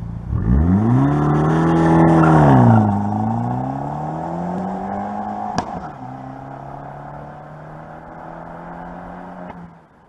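Fiat 500 Abarth's turbocharged four-cylinder revving hard as the car pulls away. It shifts up twice, the pitch dropping about three seconds in and again about six seconds in, and the note fades as the car drives off into the distance.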